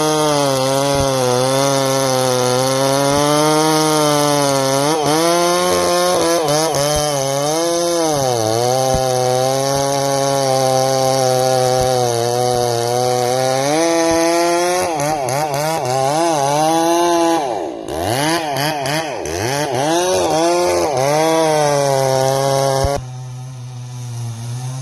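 Chainsaw cutting into a gum tree, its engine note sagging and recovering as the bar bites into the wood. The revs dip sharply and pick up again about three-quarters of the way through. Near the end it drops to a quieter, steady low running.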